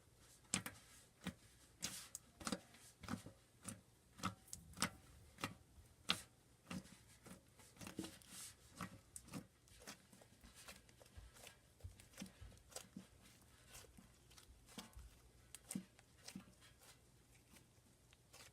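Slime being poked and pressed by fingers, giving an irregular run of small sticky clicks and pops, about two or three a second.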